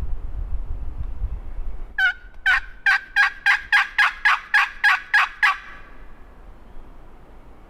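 Wild turkey calling: a string of about a dozen sharp, evenly spaced notes, about three a second, lasting roughly three and a half seconds.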